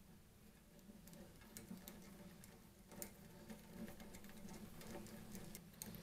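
Faint, irregular small clicks and taps of a small screwdriver and a sheet-metal bracket with a wire holder being fitted to the metal case of a hot-air rework station.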